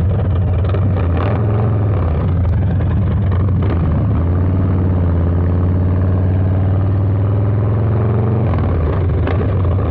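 Harley-Davidson Low Rider S's 117 Milwaukee-Eight V-twin running under way through a Two Brothers 2-into-1 exhaust. The revs vary for the first few seconds, then hold a steady note, and shift again near the end.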